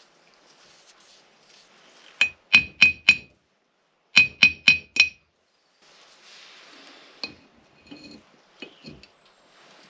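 Metal striking metal: two quick runs of four sharp, ringing clinks about a third of a second apart, followed by softer handling clicks and rattles.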